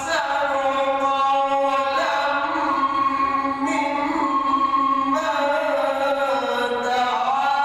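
A man's voice reciting the Quran in melodic tajweed, drawing out long sustained notes. The melody steps to new pitches about two and five seconds in and glides slowly downward near the end.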